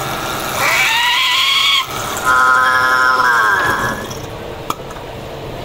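Metal lathe spindle jogged in two short runs: a whine that rises in pitch as it spins up and cuts off, then runs again and falls in pitch as it coasts to a stop. A single sharp click follows near the end.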